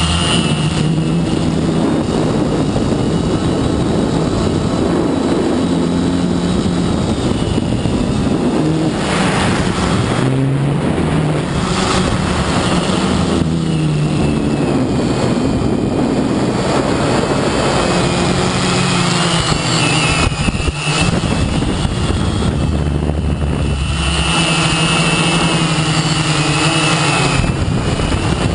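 Quadcopter's electric motors and propellers whirring, heard close up from the camera on board, the whine shifting up and down in pitch as the throttle changes.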